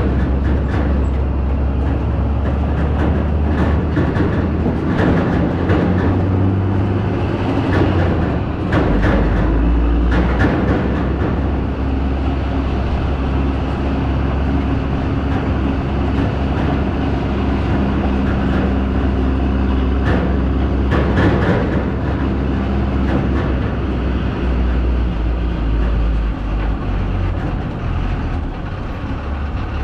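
A vehicle running with a steady low engine hum, and rattles and clanks over it that come and go, heaviest about a third of the way in and again past the middle.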